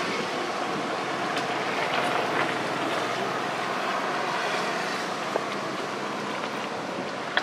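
Steady rushing outdoor noise of road traffic, with a few faint ticks and taps.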